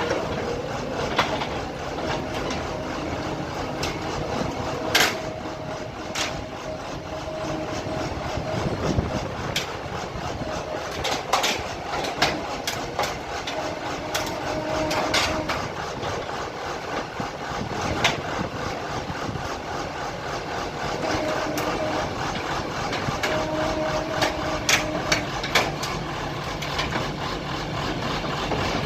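Engine of a remote-controlled water-well drilling rig running steadily while the rig is moved, with a tone that comes and goes and sharp metallic knocks every few seconds.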